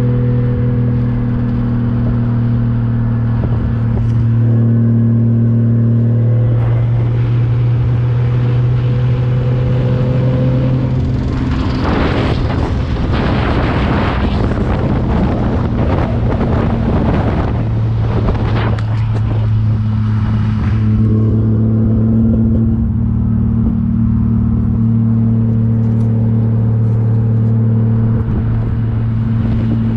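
Turbocharged 1JZ inline-six engine of a Nissan Silvia running steadily while cruising. For about nine seconds in the middle the steady engine note gives way to a louder rushing, crackling noise, then the steady note returns.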